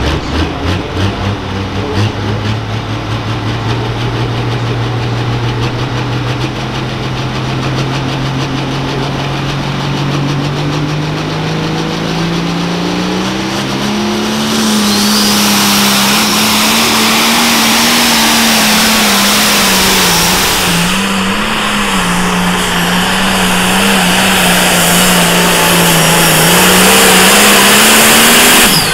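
A Limited Pro Stock pulling tractor's turbocharged diesel engine revs up under load, its pitch climbing steadily over the first half. From about halfway a loud rushing hiss joins it, and the engine holds high revs with a few small dips before the throttle comes off sharply at the end.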